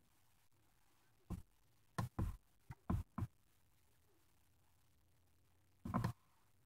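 A few short, dull knocks: a cluster of about five between one and three and a half seconds in, then one more near the end.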